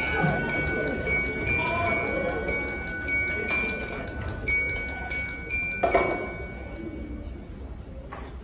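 Bell-like chimes tinkling, with a couple of high ringing notes held under them and a sharp knock about six seconds in; the sound fades over the last two seconds.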